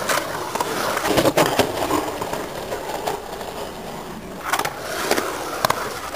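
Skateboard wheels rolling on concrete bowl surfaces, with several sharp clacks as the board's trucks and tail strike the coping at the lip.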